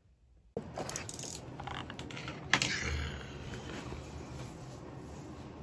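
Rustling and clicking handling noise that starts abruptly about half a second in, with one sharp, loud click about two and a half seconds in.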